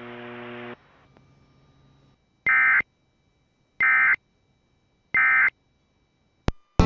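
Emergency Alert System end-of-message data tones: three identical short, buzzy digital bursts a little over a second apart. They follow a steady hum that cuts off under a second in, and a click comes near the end.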